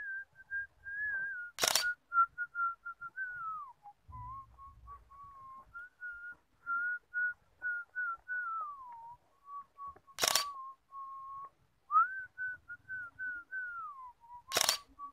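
Someone whistling a slow tune: a single clear tone moving between notes, now and then gliding down. Three sharp clicks cut across it, the last near the end.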